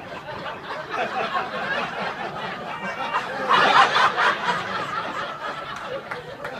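Audience laughing and chattering, the laughter swelling to its loudest a little past halfway through.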